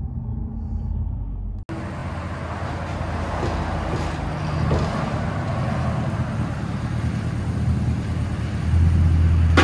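Dodge Ram 1500's 5.7-litre Hemi V8 through a true-dual 2.5-inch exhaust with no X-pipe. It settles from a rev back toward idle, heard inside the cab, then idles steadily heard from outside, and picks up in level near the end.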